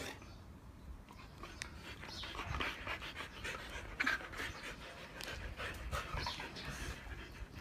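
Siberian huskies panting quietly.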